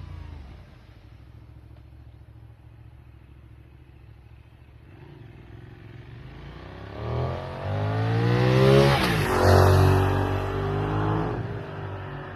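Benelli 752S parallel-twin motorcycle on its stock exhaust riding by: faint at first, then getting louder with a rising engine note as it accelerates toward the listener, the pitch dropping suddenly as it passes about nine seconds in, then fading as it pulls away.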